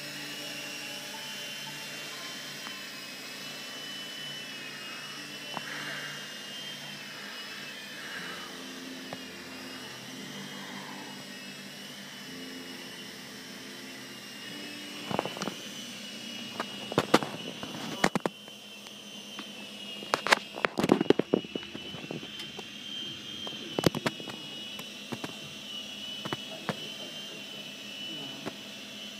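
Small electric Blade RC helicopter's motor and rotors whining steadily, the pitch wavering slightly as it flies. In the second half several sharp, loud knocks and clicks cut in.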